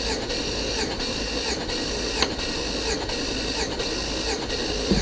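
Chevrolet Tahoe V8 being spun over on its starter motor with all spark plugs out and a compression gauge in one cylinder. The starter whirs steadily with a regular beat from the engine turning over. With no plugs in there is no load on the starter, so it is just free-spinning the motor while compression builds on the gauge.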